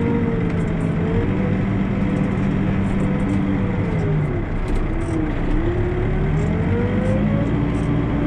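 Backhoe loader's diesel engine running, heard from inside the cab as the operator moves a loaded front bucket of dirt. Its pitch sags about four seconds in and climbs back a few seconds later as the load on it changes.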